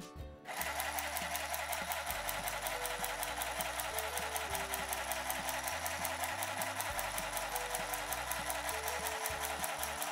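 Handheld single-side-stitch (chain-stitch) sewing machine switching on about half a second in and running steadily, its needle making a rapid, even run of strokes as it stitches through four layers of fabric.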